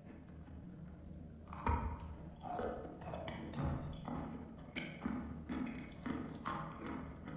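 Eating chalk: a sharp crunch about a second and a half in, the loudest sound, then dry, crunchy chewing at about two crunches a second.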